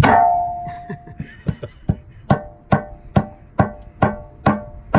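Hammer blows on metal that ring after each strike: one hard blow at the start ringing for about a second, a couple of lighter knocks, then a steady run of about seven blows, a little over two a second, from about two seconds in. The hammering is breaking loose a 6V92 Detroit diesel's oil pan, held fast by Right Stuff sealant in place of a gasket.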